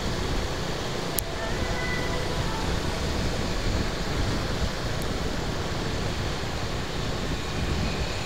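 Steady traffic and road noise heard from a moving vehicle, with wind rumbling on the microphone and a single sharp click about a second in.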